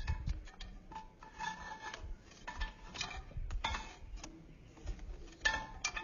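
A pied crow working a wooden stick inside a glass jar: irregular scraping and rubbing of wood against glass, with short scratches, loudest near the end.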